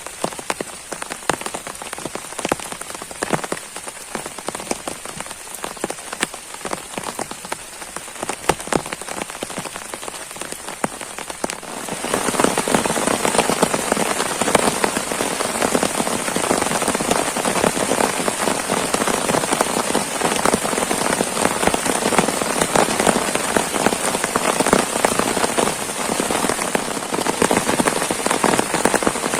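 Heavy rain hitting a surface, with individual drops ticking. About twelve seconds in it suddenly turns louder and denser, into a steady downpour.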